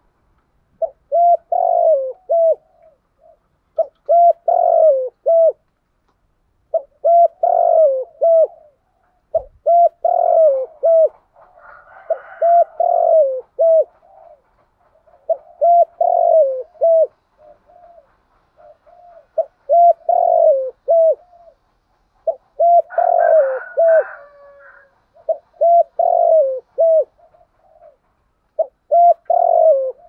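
Caged spotted dove cooing over and over, each phrase a quick run of several short coos that bend downward, repeated about every two to three seconds.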